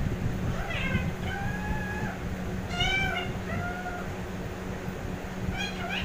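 Indian ringneck parakeet vocalizing: about five short, high-pitched, arching calls, with a pause of over a second in the second half.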